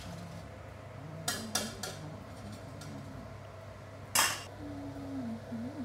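Metal ladle knocking against an aluminium wok while blanched shimeji mushrooms are scooped out of the water: a few light clinks a little over a second in, then one louder clank about four seconds in. A steady low hum lies underneath.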